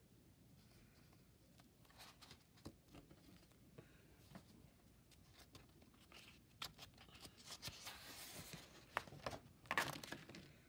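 Faint paper rustling and crinkling with scattered small clicks, loudest near the end as a page of a spiral-bound sketchbook is turned.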